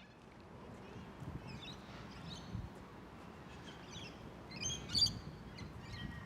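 Birds chirping in short, repeated high calls, busiest about two-thirds of the way through, over a steady low rumble.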